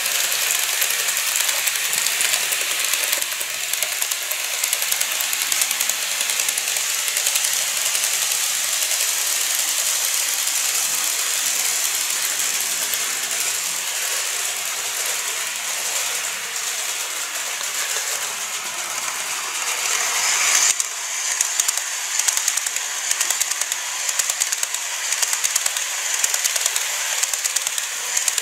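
KATO N-gauge model trains running on the track: a steady high whirr with fast, dense clicking of the small wheels over the rails and joints. About two-thirds of the way through it changes abruptly to louder, sharper clicks as a different train passes.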